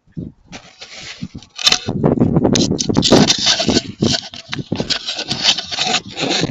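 Footsteps crunching and plowing through about a foot of fresh snow, a dense, irregular crunching that gets louder about a second and a half in.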